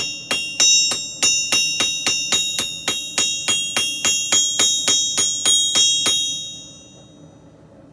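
Blacksmith's hammer striking steel on an anvil, a steady run of about twenty blows, roughly three a second, each leaving a bright metallic ring, flattening a forged messer blade. The blows stop about six seconds in and the ring fades out.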